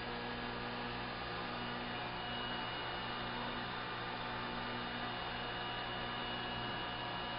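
Steady electrical hum made of several steady tones, from running aquarium pumps and filtration equipment.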